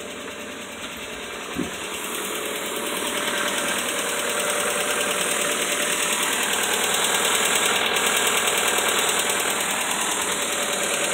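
Hyundai Elantra's DOHC 16-valve four-cylinder engine idling with a rapid ticking from the valvetrain, growing louder over the first few seconds. The ticking is lifter knock, which the owner says takes a while to go away after an oil change.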